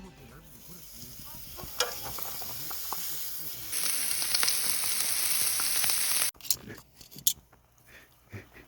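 Food sizzling and frying, a steady hiss with scattered pops. It grows louder partway through, then cuts off abruptly.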